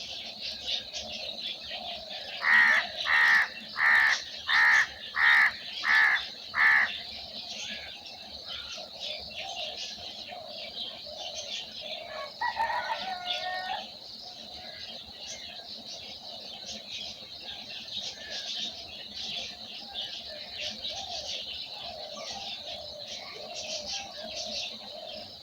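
Birds calling: small birds chirp on and on in a high twitter, while a larger bird gives seven loud calls in an even series about three seconds in, and one longer call about halfway through.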